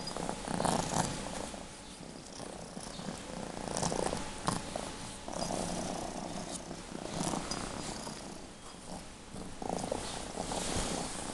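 Domestic cat purring steadily while being stroked, the purr swelling and fading with its breaths.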